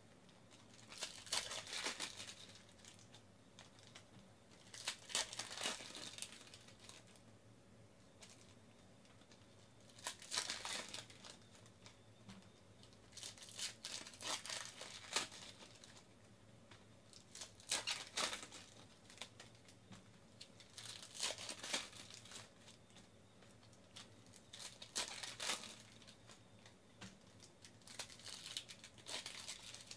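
Plastic wrappers of baseball card packs being torn open and crinkled by hand, a short burst of crinkling every three to four seconds.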